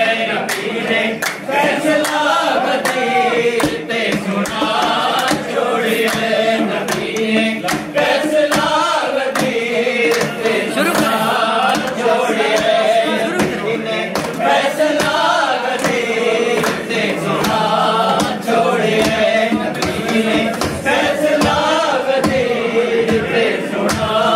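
A group of men singing a devotional manqabat together, with many sharp percussive beats throughout.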